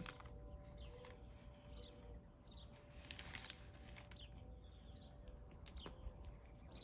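Faint outdoor quiet with small birds chirping now and then in the background. A goat nosing at a black plastic trash bag makes a brief rustle about three seconds in, with a few light clicks.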